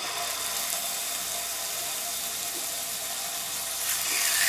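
Sous-vide-cooked chicken breasts sizzling in hot olive oil in a stainless steel pan as they sear. The steady sizzle gets louder about four seconds in.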